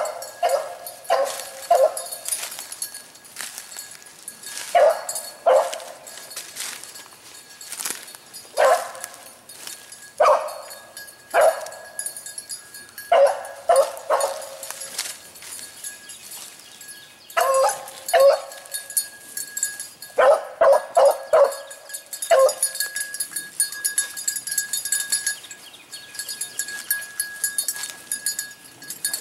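A single rabbit hound baying while running a rabbit's trail: short barks, some alone and some in quick runs of two to four, repeated every second or two.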